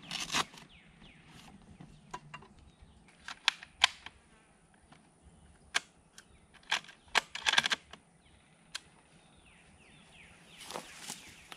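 Rifle being taken from a soft rifle bag and readied: rustling of the bag and a scattered string of sharp clicks and knocks from handling the rifle and gear, with a cluster of them near the end.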